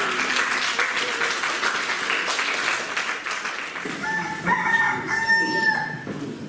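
Theatre audience applauding. About four seconds in, a cockerel crows once as a played-back stage sound effect, marking the morning of the execution.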